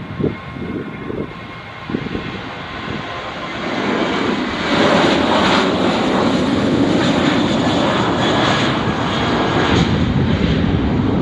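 Airliner engines running, a steady roar that swells about four seconds in and holds loud as the plane passes.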